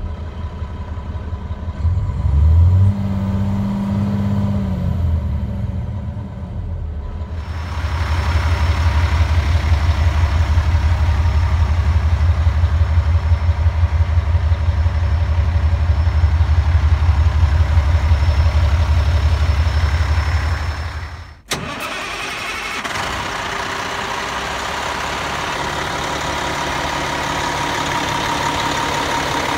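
Cummins ISM inline-six diesel of a 2007 International 7600 dump truck running: it is revved briefly and drops back to idle, then idles louder with an even pulse. About twenty seconds in the sound cuts abruptly to the engine idling more steadily with a faint steady whine, heard from the open engine bay.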